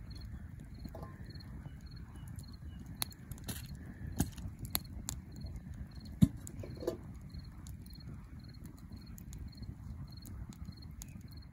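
A cricket chirping steadily, short high chirps about two a second, over a low background rumble with a few scattered clicks.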